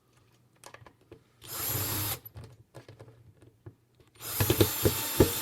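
Power screw gun backing the stock bridge's screws out of a bass guitar: a run of under a second, a few clicks and knocks, then a longer run starting about four seconds in with sharp knocks during it.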